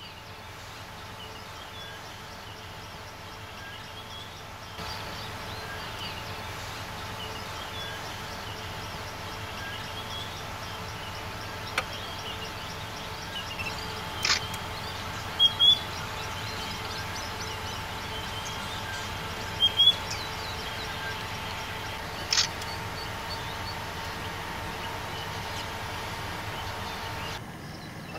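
Savanna bush ambience: scattered bird chirps over a steady background hum, with a few brief sharp clicks. The background grows louder about five seconds in.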